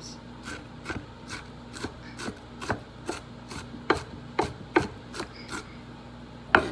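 Knife chopping on a wooden cutting board in quick, uneven strokes, about three a second, with one harder stroke near the end.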